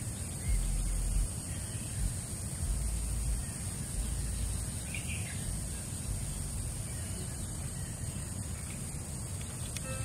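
Outdoor rural ambience: a steady high-pitched hiss, low rumbles in the first few seconds, and a single short bird chirp about five seconds in.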